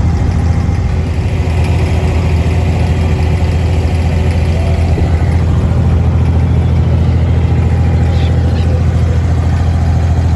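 Abra water taxi's inboard diesel engine running at a steady pace, a loud, even low drone.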